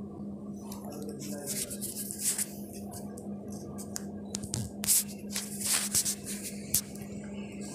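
Metal spatula scraping and knocking against a metal kadai while stirring and frying shredded potato, in irregular strokes starting about a second in and loudest near the end, over a steady low hum.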